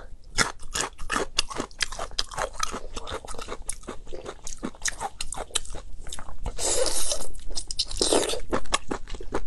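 Close-miked chewing of cooked whole baby octopus: rapid wet clicks and smacks of biting and mouth noise, with two longer, louder slurps about seven and eight seconds in.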